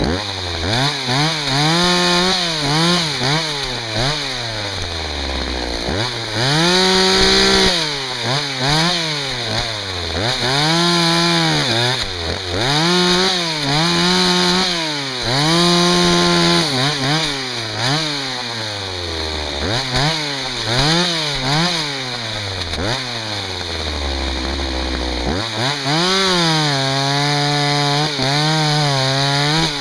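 Husqvarna 61 two-stroke chainsaw cutting firewood, revved up and down over and over. It holds at high revs for a second or two through each cut and drops back to idle between cuts, with one longer idle about three-quarters of the way through.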